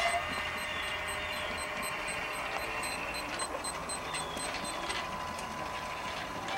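Steady hiss and hum of a propane grill running with its electric rotisserie motor turning the spit, with faint crackles from the fat in the drip pan.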